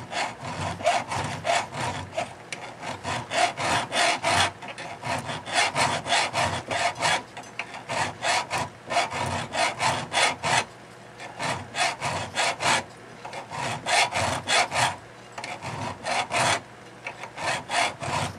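Flat hand file rasping back and forth across a thin stainless steel sheet clamped in a vise, filing down the raised dimple punched into the sheet. Quick repeated strokes, about two or three a second, in runs broken by short pauses.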